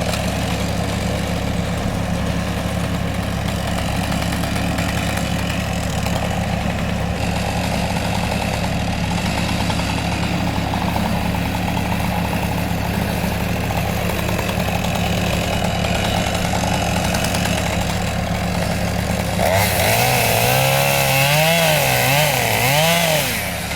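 Chainsaw running steadily while cutting through a tree trunk. About twenty seconds in it gets louder, its pitch rising and falling as the throttle is worked.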